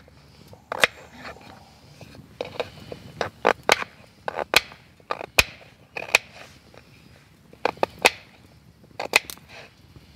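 Knife cutting potatoes into cubes on a chopping board: irregular sharp knocks of the blade striking the board, some in quick clusters of two or three.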